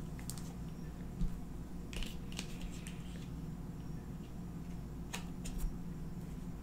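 Tarot cards being handled, a few light clicks and flicks as cards are moved in the hand, over a steady low hum.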